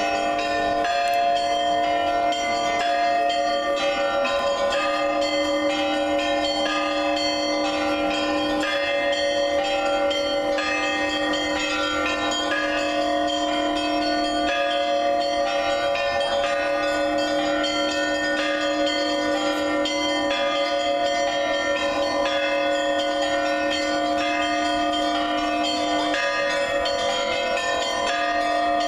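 Church bells ringing: several bells of different pitch struck in a continuous peal. A deep bell sounds repeatedly beneath quicker, steady strikes of the smaller bells.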